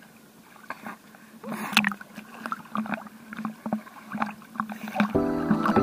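Seawater sloshing and splashing right at the microphone, held at the water's surface, in small irregular splashes. Music starts near the end.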